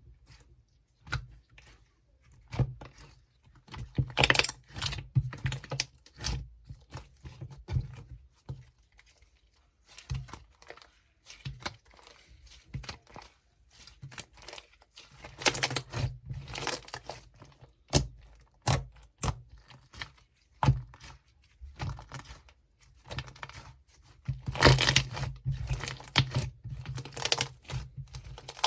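Hands squeezing and poking slime: sticky crackling, popping and clicking sounds that come in irregular runs, with denser, louder spells about four, sixteen and twenty-five seconds in.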